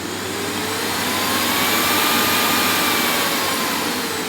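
Miele Revolution 5000 canister vacuum running, its motor whine rising in pitch and loudness to a peak about halfway through, then falling back down, over a steady rush of suction air. The machine stays on through the change in speed, with the rebuilt hose and handle controls working.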